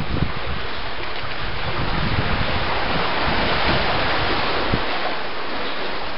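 Sea surf washing against the rocks below, swelling to a peak about midway and then easing, with wind buffeting the microphone.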